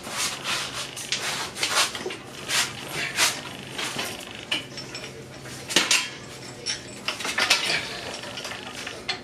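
Metal tools and engine parts clinking and clanking irregularly, a string of sharp metallic knocks, during hands-on teardown work on a Honda D16 engine.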